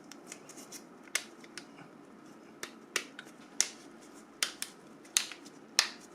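Small plastic phone parts being handled and fitted together: a string of irregular sharp clicks and taps, about a dozen, the louder ones coming in the second half, as parts of a Nokia 5530 XpressMusic's body shell go into place.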